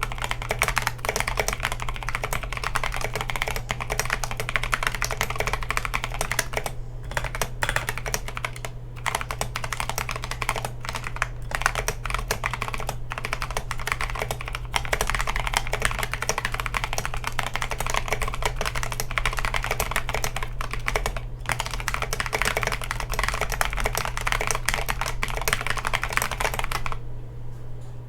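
Continuous typing on a mechanical keyboard fitted with Kailh Polia tactile switches: a dense run of keystroke clacks with a few brief pauses, the last about a second before the end.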